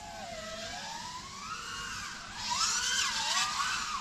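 Five33 Switchback Pro 5-inch FPV quadcopter flying, its T-motor 2208 motors and props on 6S giving a whine that glides up and down in pitch with throttle changes. It gets louder and rougher in the second half.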